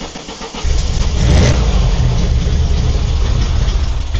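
Air-cooled Volkswagen flat-four engine of a trike turning over on the starter, catching about half a second in, revving briefly, then running. It fires up now that the ignition coil's feed lead has power again.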